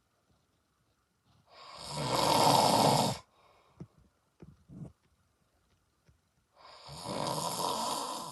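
A man snoring: two long snores about five seconds apart, each swelling over a second and a half or so. The first is the louder.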